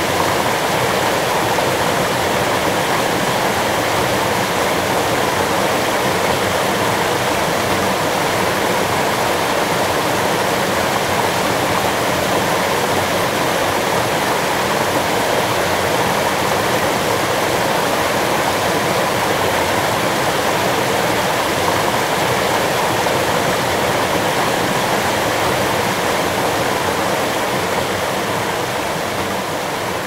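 Water from a small rock cascade on the Erskine River, rushing and churning steadily into the pool below, with no break. It dips slightly in level near the end.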